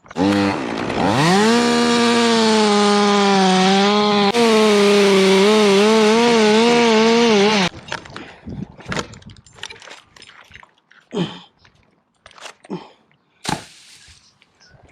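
Chainsaw revving up from low speed to full throttle within about a second, then running hard for roughly six more seconds with its pitch wavering under load before it stops abruptly. A few scattered knocks and clicks follow.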